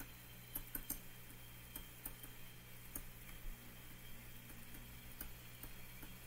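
Faint, irregular clicks of a stylus tapping on a tablet screen during handwriting, over a low steady hum.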